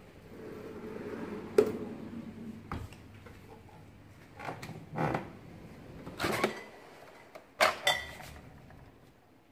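A wooden drawer slides shut and stops with a sharp knock, followed by several knocks and thumps as cabinet and minibar fridge doors are handled. Near the end, glass bottles in the fridge door clink together twice with a brief ring.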